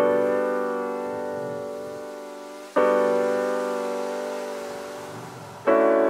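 Background music: slow piano chords, three struck about three seconds apart, each left to ring and fade.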